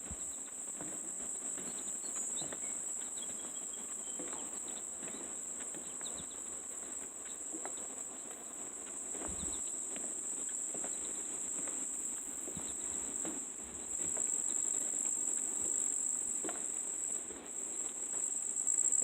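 Steady, high-pitched chorus of insects, with faint scattered clicks and rustles underneath; it grows slightly louder about three-quarters of the way through.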